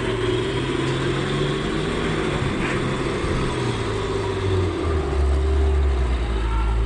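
Heavy vehicle engine running steadily, then settling into a deeper, louder low note about five seconds in.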